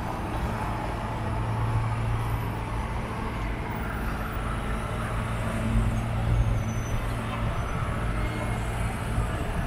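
Steady low hum of an idling vehicle engine over general street traffic noise.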